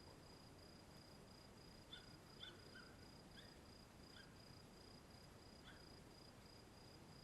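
Faint outdoor ambience: an insect trilling steadily on one high note, with a handful of short chirps scattered through the middle.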